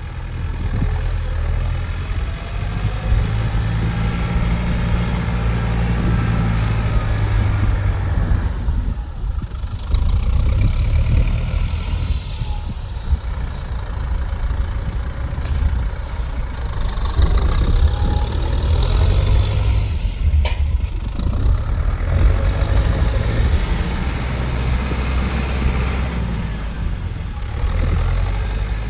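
A vehicle engine running with a steady low rumble. There are a few brief high squeals in the middle, and a sharp click about twenty seconds in.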